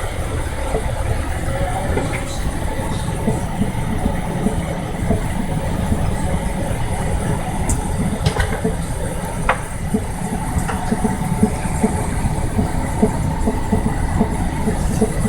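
A steady low rumble like an engine running, with a few light clicks and taps over it.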